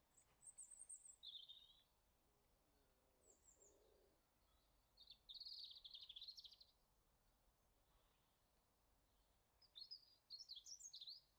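Small birds chirping and twittering faintly in three short, high-pitched bouts over a quiet background hush.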